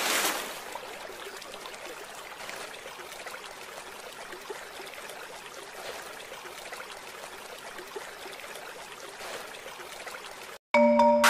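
A toy tractor splashes into shallow water, followed by a faint, steady trickling water noise as it sinks. Near the end, a marimba-like jingle starts.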